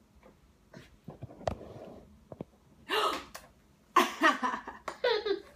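A few soft clicks, then breathy bursts of laughter and gasps, and a baby's high-pitched vocalising near the end.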